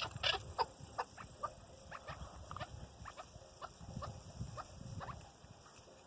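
Chukar partridges calling: a string of short chirping call notes, two or three a second, louder near the start, over a low rumble.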